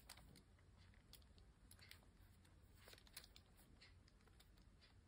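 Near silence with a few faint, scattered clicks: the iPhone 13 Pro Max's side buttons being pressed through a soft TPU case.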